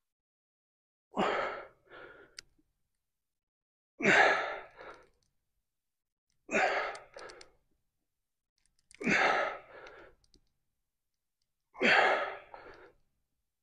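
A man's forceful breaths out, five of them about every two and a half seconds, each followed by a shorter, softer breath, as he strains through reps of dumbbell lunges.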